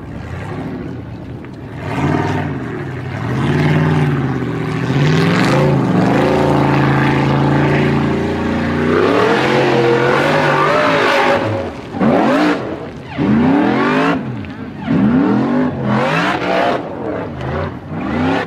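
Formula Offroad buggy's race engine at full throttle on a steep hill climb, its revs rising and falling, then held high for a few seconds. Over the last several seconds it comes in short bursts of revving, each climbing and dropping away, as the throttle is blipped again and again.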